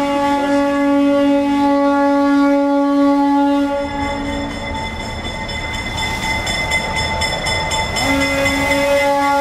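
Train horn sounding a long, steady blast that stops about four and a half seconds in, with the train's rumble between, then a second long blast starting near the end.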